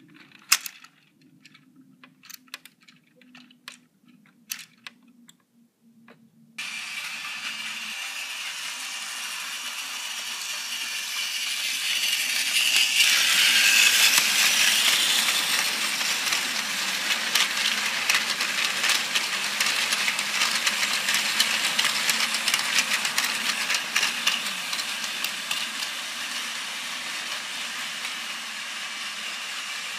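A few scattered sharp clicks of plastic toy-train parts being handled, then a battery-powered Plarail toy train running on plastic track: a steady whirring rattle of the small motor and wheels, loudest as the train passes close about a third of the way in.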